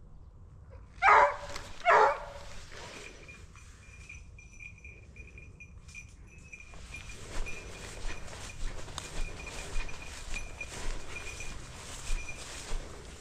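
A hunting dog barks twice, about a second apart, near the start. Footsteps follow at a steady walking pace.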